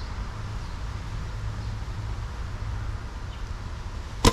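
Wind buffeting the microphone as a steady low rumble, then near the end a single sharp snap of an Oneida Phoenix bow being shot.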